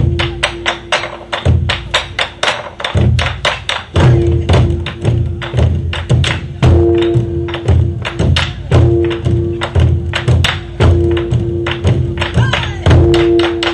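Korean buk drum ensemble playing a fast, driving rhythm: dense rapid sharp strikes over deeper low hits, meant to evoke galloping horse hooves. A held tone sounds briefly every couple of seconds over the drumming.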